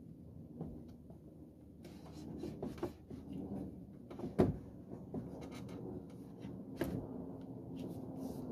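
Wooden deck panel being worked loose and lifted out of its frame: hardwood boards scraping, rubbing and knocking against the framing. There is a sharp knock a little past four seconds in and another near seven seconds.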